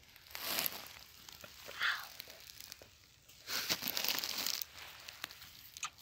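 Dry grass and wiry stems of a wild asparagus bush rustling and crackling as a hand works through them to pick a shoot, in a few short bursts, the longest about three and a half seconds in.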